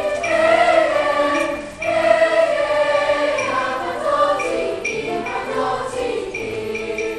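School chorale singing a choral arrangement of a Greek folk dance song, sustained notes in several voices with a short break between phrases about two seconds in.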